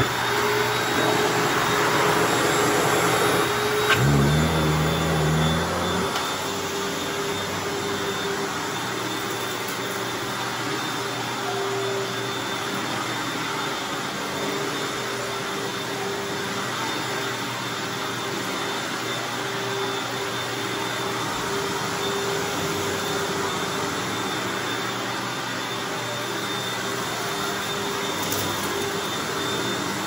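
Freshly serviced Hoover Anniversary bagged upright vacuum cleaner running steadily as it is pushed back and forth over carpet, a constant motor whine over a rush of suction air. It is louder for the first few seconds and a little quieter from about six seconds in.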